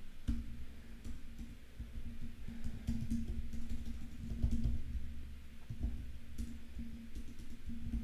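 Quiet background music with a drum beat, and keys tapping on a computer keyboard as text is typed.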